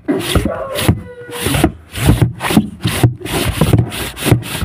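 Rough rubbing and scraping right against the microphone in quick, uneven strokes, several a second: handling noise from something moving over the covered phone. A short squeaky tone sounds about a second in.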